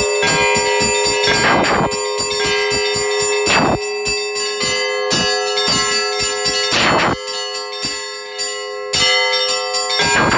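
Russian Orthodox church bells ringing a festive peal: small bells struck in a quick, dense run over a lingering chord of tones, with a louder stroke every two to three seconds.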